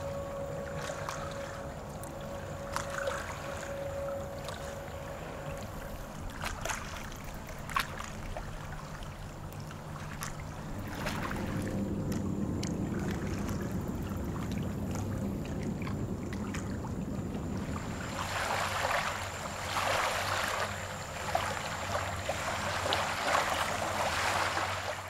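Water sloshing and splashing around someone wading in a shallow lake, with scattered small clicks and splashes that get busier in the last several seconds, over a steady low hum.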